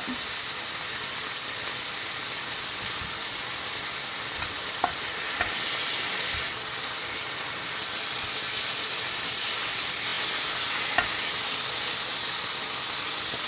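Bacon strips sizzling in a hot frying pan, a steady hiss with a few brief sharp clicks.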